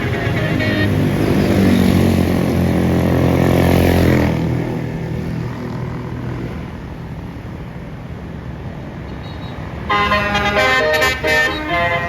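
A bus engine running loud as the bus passes, falling away after about four seconds. About ten seconds in, a basuri (telolet) multi-tone bus horn plays a quick stepping melody.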